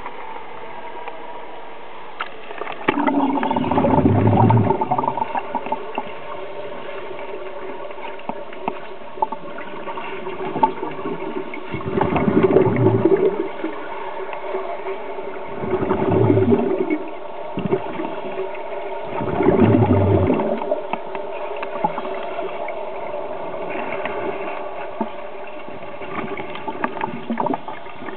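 Scuba regulator exhaust bubbles heard underwater: four loud bubbling bursts a few seconds apart, each a second or two long, the rhythm of a diver breathing out. A steady hum runs beneath them.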